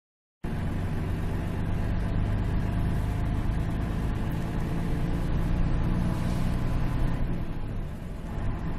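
A motor vehicle's engine running steadily, a low drone with road noise over it, easing slightly near the end.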